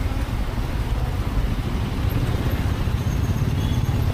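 Bajaj Pulsar N250's single-cylinder engine running steadily at low town speed, a continuous low rumble heard from the rider's seat.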